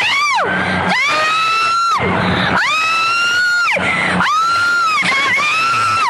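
A woman on the riverbank screams in a string of long, high-pitched cries, each about a second long, shouting that the boat has sunk as a capsized tugboat goes under with two people aboard.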